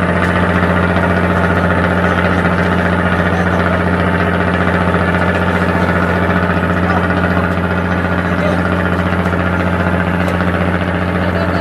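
Fishing boat's engine running steadily at a constant speed, a loud, unchanging low drone.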